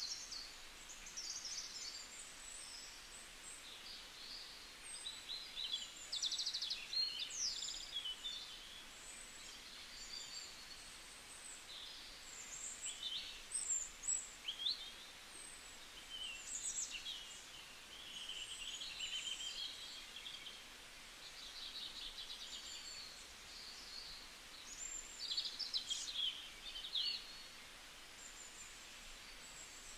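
Small birds chirping and trilling, with many short high calls overlapping over a steady hiss.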